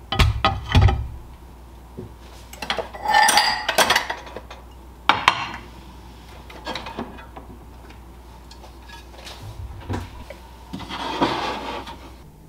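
Dishes and cutlery clinking and knocking in separate bursts as dried white plates and bowls are lifted out of a stainless-steel wire drying rack and put away.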